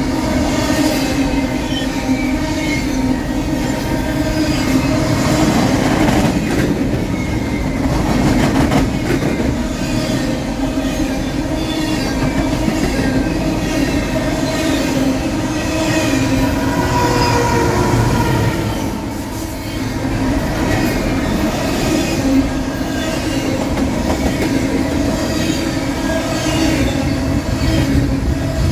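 A train rolling past, its wheels squealing in several high, wavering tones over a steady rumble and clatter of wheels on the rails.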